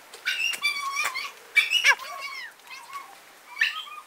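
Dogs yelping and yapping: a string of short, high-pitched cries that slide up and down in pitch, loudest near the middle.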